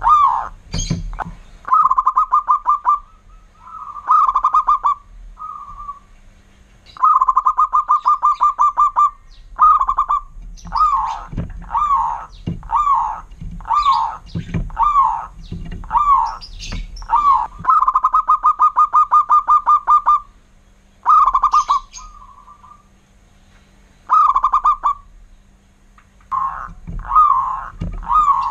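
Zebra dove (perkutut) calling. Fast runs of short, evenly spaced cooing notes, each run lasting one to two seconds, alternate with slower series of single rising-and-falling coos, phrase after phrase with short pauses.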